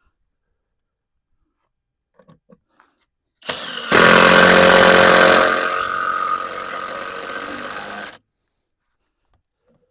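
A Kobalt cordless power tool's motor run in one burst of about four seconds: loudest for the first second and a half, then steady at a lower level until it cuts off abruptly when the trigger is released. A few light taps come before it.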